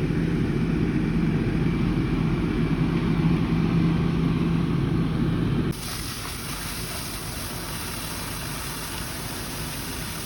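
Fire truck's diesel engine idling steadily with a low hum. About six seconds in, the sound drops abruptly to a quieter, steady running.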